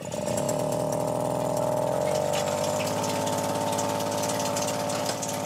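Small engine of a miniature orchard monorail running steadily as the cart hauls loaded crates of mikan up its track. The engine's pitch stays even, and it grows slightly fainter near the end.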